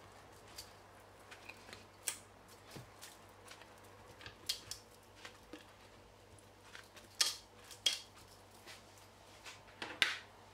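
Scattered light clicks and taps of whole button mushrooms being pressed in among tomato slices and greens in a stainless-steel Thermomix mixing bowl, with a few sharper knocks about two, seven and ten seconds in.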